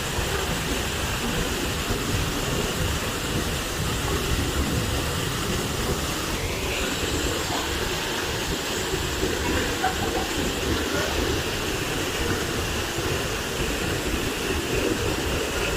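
Steady rushing roar of a monsoon waterfall, a dense unbroken noise heavy in the low end.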